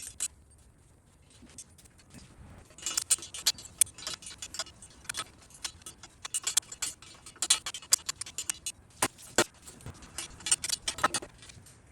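Metal hand tools clicking and clinking against engine parts while bolts are worked loose: irregular sharp metallic clicks in bunches, beginning about three seconds in, with the loudest near the end.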